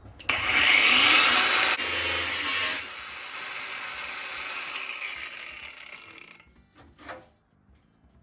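Cheap angle grinder with a cutting disc slicing through the sheet steel of a truck fender for about three seconds, then running on more quietly and fading away as it spins down. A couple of short knocks near the end.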